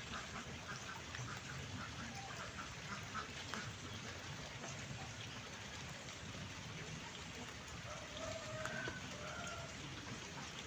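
Steady rain falling, with an animal calling through it: a quick run of short calls, about four a second, in the first few seconds, then two or three longer calls near the end.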